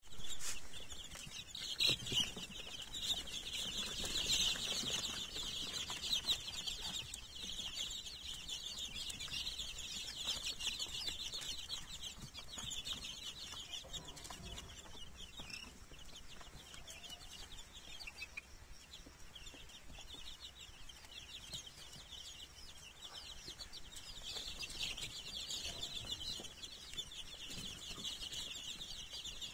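A crowd of fifteen-day-old chicks (Light Sussex, Black Australorp and Rhode Island Red) peeping non-stop in a dense chorus of high chirps, busiest in the first few seconds and again near the end.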